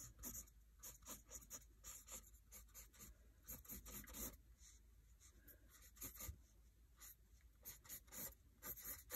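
Pencil scratching on lined notebook paper in many quick, short strokes, faint and irregular, as hair is sketched in.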